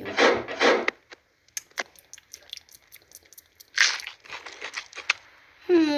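A wrapper crinkling and tearing, with a scatter of small sharp clicks from handling and a louder rustle about four seconds in.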